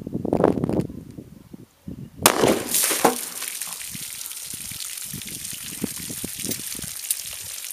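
A single 9mm handgun shot about two seconds in, firing a Hornady Critical Defense 115 gr FTX round into water jugs. After the shot comes a steady splashing as water pours out of the punctured jugs onto the ground. A low rumbling noise comes before the shot, in the first second.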